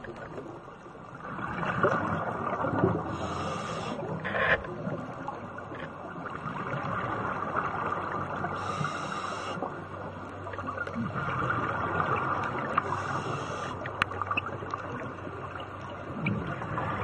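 Scuba regulator breathing underwater: a short hiss of inhalation alternating with the rushing bubble noise of exhaled air, a breath cycle about every four to five seconds, with a few sharp clicks.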